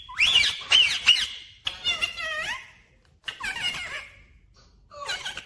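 Indian ringneck parakeet calling in about four short bouts of high-pitched chatter, the pitch sliding up and down within each bout.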